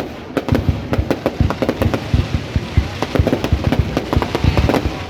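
Aerial fireworks going off in a dense barrage: many sharp bangs a second, overlapping one another.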